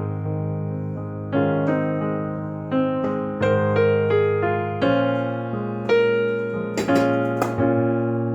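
Background music: slow electric piano chords, each struck and left to fade, with a couple of faint clicks about seven seconds in.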